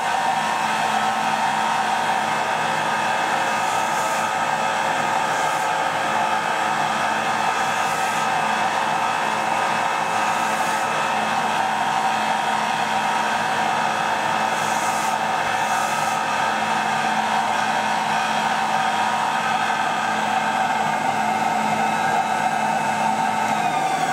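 Bench belt sander running steadily, with a few brief scuffs as split bamboo strips are pressed against the belt to sand the internodal dams.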